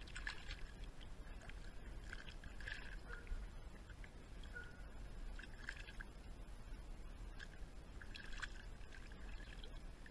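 A diving mask being rinsed in creek water: faint splashing and sloshing in short bursts every two or three seconds, over a low steady rumble.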